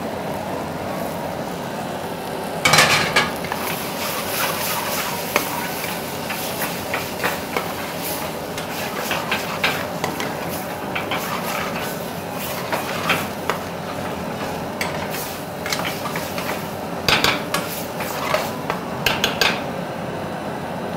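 Steel ladle scraping and knocking against a frying pan as a thick onion and cashew masala is stirred, over a steady sizzle. The ladle strikes come in clusters, loudest about three seconds in and again near the end.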